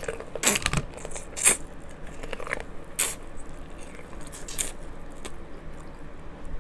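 Close-up eating of king crab legs in butter sauce: chewing and wet squishing, with about four sharp crackling snaps, the loudest about a second and a half in.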